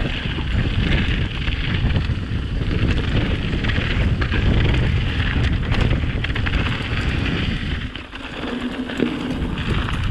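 Wind buffeting the microphone on a mountain bike speeding down a dirt singletrack, with the Pipedream Moxie hardtail's tyres hissing over the dirt and small rattles and clicks from the bike over the bumps. The wind rumble eases about eight seconds in.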